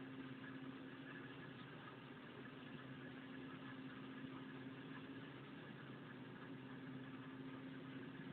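Faint, steady hum of a running machine at an even idle, holding one constant tone without change.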